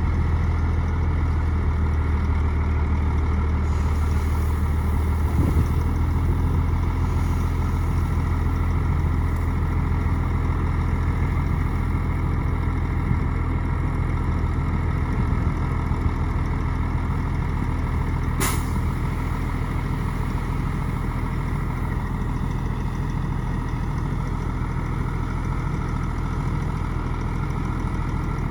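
Heavy diesel engine of earthmoving machinery running steadily, with one short, sharp click about eighteen seconds in.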